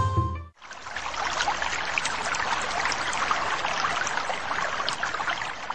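Plucked-string background music cuts off about half a second in, then water trickles and splashes steadily.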